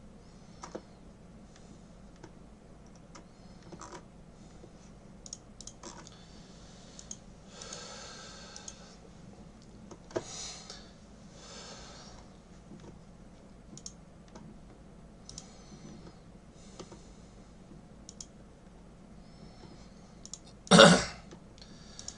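Scattered light clicks of a computer keyboard and mouse with a few breathy swells, then near the end a single loud throat-clearing cough.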